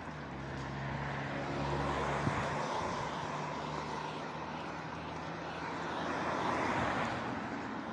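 Road traffic passing: tyre and engine noise that swells and fades twice, over a steady low engine drone that fades out after about six seconds.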